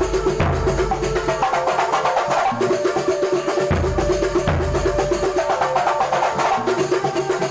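Kuntulan percussion ensemble playing: dense, fast drumming with deep bass-drum strokes under a repeating pitched melody.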